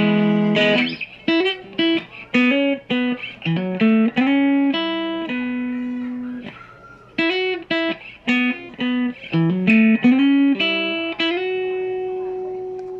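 Krait Telecaster electric guitar played through a Boston Engineering M15 amplifier. A ringing chord dies away in the first second, then a run of picked single notes with upward string bends follows. It ends on a long held note that slowly fades.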